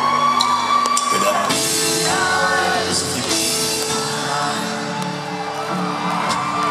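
Live folk-rock band playing, heard from the audience, with a drum kit played with soft mallets and held sung notes over the instruments. Voices in the crowd sing along and whoop.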